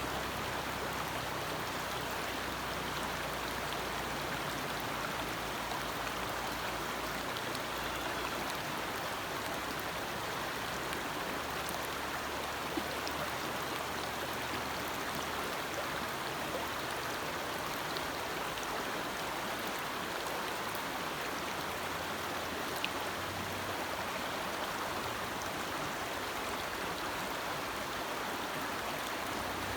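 Forest stream flowing steadily, a continuous rushing of water with a few faint ticks.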